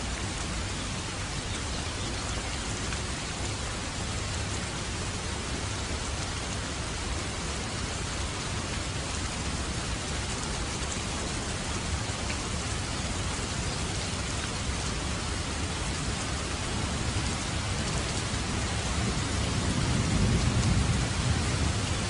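Steady rain falling, an even hiss, with a low rumble swelling near the end.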